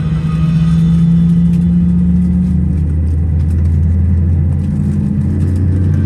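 Steady low hum inside the cabin of an Airbus A320 airliner, its pitch stepping up slightly about five seconds in.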